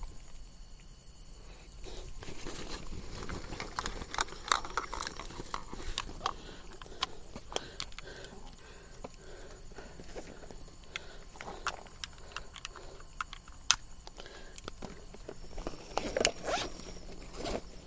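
Close handling noise of camera equipment being fitted for night vision: an irregular run of clicks, scrapes and rustles, with a few sharper clicks near the end.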